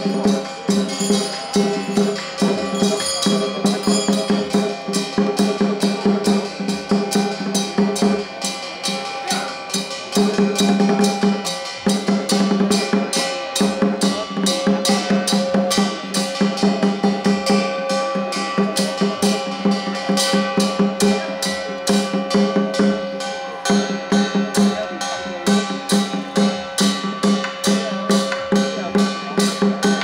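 Traditional temple-festival music: fast, steady drum and percussion beating over held tones, going on without a break except for a couple of brief dips.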